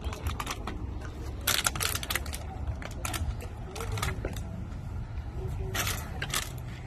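Recyclable containers clattering as they are emptied and handled: a rapid run of clinks and clanks, with the thickest bursts about a second and a half in and again near the end.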